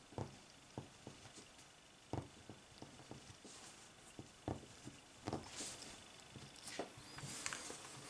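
Faint handling sounds: scattered soft taps, knocks and rustles as leather finger strips and thin metal plates of a glove are shifted and set down on a cloth-covered table.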